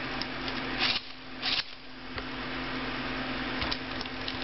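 Tekno robotic puppy's small motors and gears whirring steadily, with two short rustling scrapes about a second in as a hand handles its nose and head.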